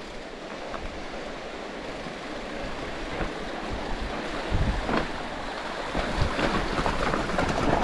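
Specialized Turbo Levo electric mountain bike rolling down a rough dirt trail: a steady rush of tyre noise, with knocks and rattles of the bike over bumps that grow louder and more frequent over the last few seconds.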